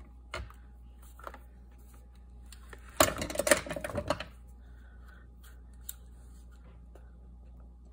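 An eyelet being set through a notepad cover with an eyelet-setting tool: a few light clicks, then about three seconds in a burst of clicking and crunching that lasts about a second, with one more click a little later.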